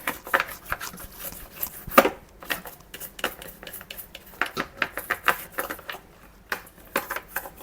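Toothbrush scrubbing a part of a Shark cordless stick vacuum cleaner: quick, irregular scratchy strokes, pausing briefly near the end.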